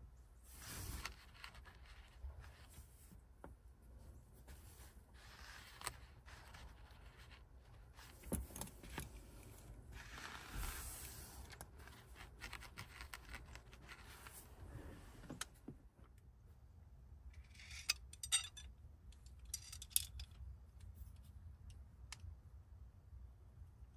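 Scrapes and light metallic clicks and jingles of a muzzleloader rifle being loaded by hand, with a ramrod worked down the barrel. A run of sharp rattling clicks comes about three quarters of the way through.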